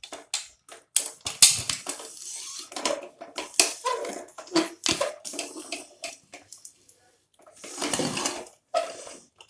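An aluminium pressure cooker lid, fitted without its rubber gasket, being twisted and worked open. It makes an irregular run of metal-on-metal scrapes and clanks against the cooker's rim, with a longer scrape near the end.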